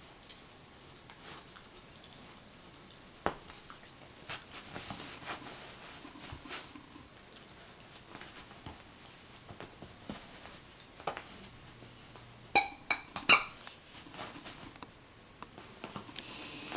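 Jack Russell terrier chewing and mouthing a plush squeaky toy, with soft scattered clicks and rustles. About three-quarters of the way through, the toy's squeaker squeaks three times in quick succession.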